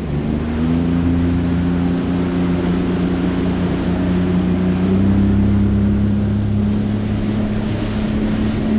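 40 hp outboard motor accelerating the boat up to speed, its pitch climbing over the first five seconds or so and then holding steady, over the rush of water and wind.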